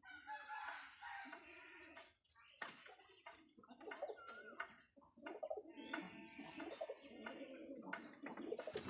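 Domestic pigeons cooing over and over, with a few sharp clicks among the calls.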